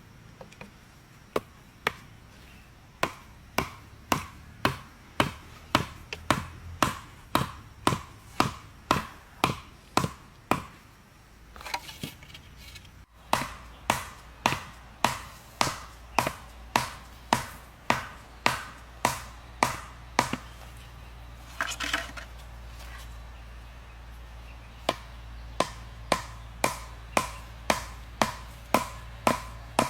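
Repeated chopping blows at a steady pace of about two a second. They pause twice, briefly, with a short rustle in each pause.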